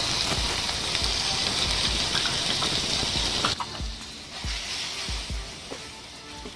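Chopped tomatoes sizzling in hot oil as they land in the tadka pan, stirred with a wooden spatula; the sizzle drops off sharply about three and a half seconds in.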